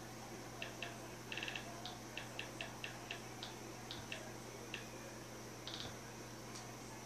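Short electronic navigation ticks from the YouTube TV app's on-screen keyboard, heard through the TV speakers as the cursor steps across letters. There are about fifteen irregular ticks, with a quick run of several about a second in and another near the end, over a faint steady hum.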